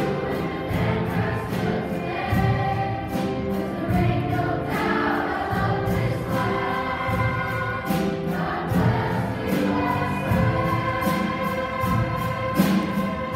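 Children's choir singing a patriotic song over instrumental accompaniment with a steady beat.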